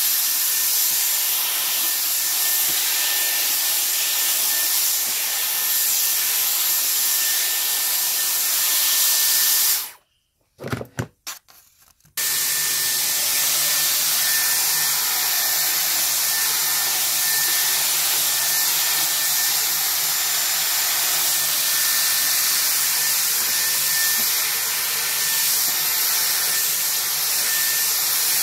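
Dyson Airwrap hot-air styler blowing, a steady rush of air with a high whine. It is switched off about ten seconds in, a few clicks follow, and about two seconds later it comes back on.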